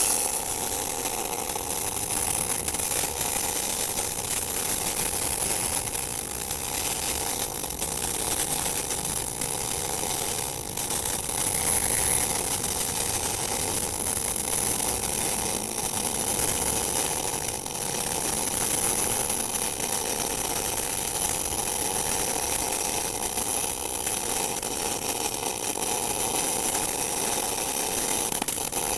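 MIG welding arc from a TOPGUN MIG 315VS three-phase welder, set to about 22.5 volts with 1 mm solid wire, laying a bead on 20 mm-thick steel plate. The arc runs steadily without a break.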